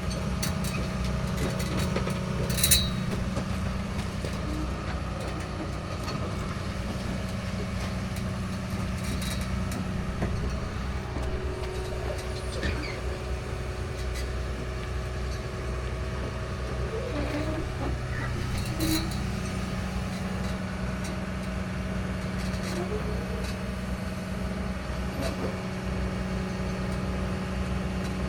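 Heavy diesel engine running steadily at a low, even speed, with sharp metallic clanks about three seconds in and again around nineteen seconds.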